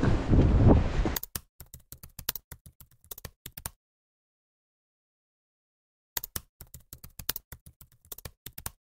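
Wind buffeting the microphone over surf, cut off abruptly about a second in. Then two runs of rapid keyboard-typing clicks, each about two and a half seconds long, separated by dead silence: a typing sound effect.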